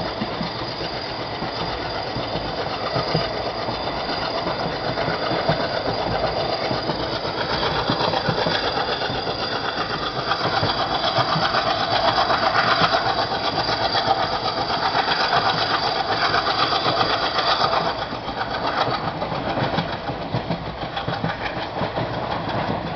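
Express train hauled by a WDM3A diesel locomotive on the move, a fast, steady rhythmic clatter of running gear and engine, growing louder through the middle and easing off a little near the end.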